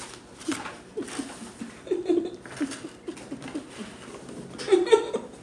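A woman laughing to herself in short, breathy chuckles, a few a second, with a louder laugh near the end.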